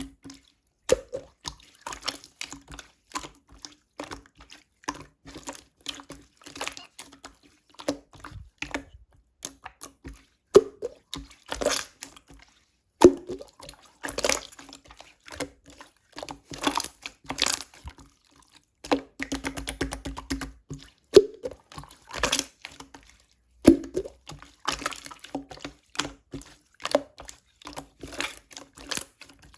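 Clear jelly slime being worked by hand, giving irregular runs of wet, sticky clicks with a few louder snaps.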